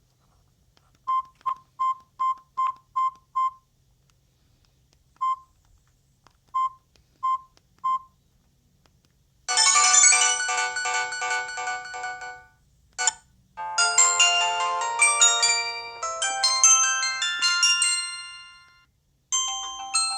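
Samsung GT-E2210b phone beeping under key presses: seven quick single-pitch beeps, then four more spaced out. From about halfway in, polyphonic ringtone melodies play through its small speaker, one cut off short, a brief snippet, another fading away, and a new tune starting near the end.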